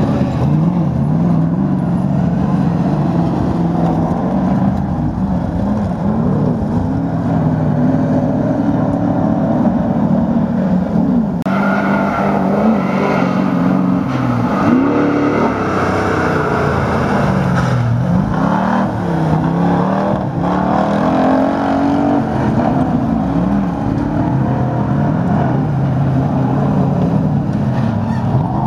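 Race truck engines revving hard on a dirt autocross course, their pitch rising and falling again and again as they accelerate and lift off. The sound changes abruptly about eleven seconds in.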